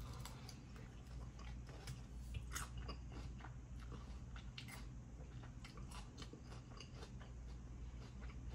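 A person chewing crunchy food: irregular small crunches.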